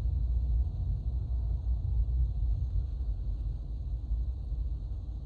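Low, unsteady rumble of a taxiing jet airliner's engines heard across the airfield.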